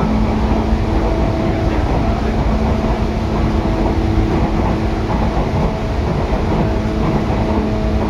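Inside an 8500-series electric train with Hitachi traction motors, above the underfloor air compressor: a steady rumble from the running gear with a level motor hum, the train holding an even speed.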